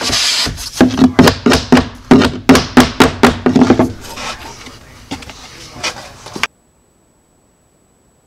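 A rapid run of sharp knocks on wood, about three a second, with a hollow ring under them. They thin out after about four seconds and cut off abruptly about six and a half seconds in, leaving dead silence.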